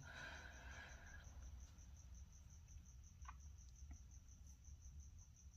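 Faint cricket chirping steadily, a high pulse repeating about six or seven times a second, over a low hum.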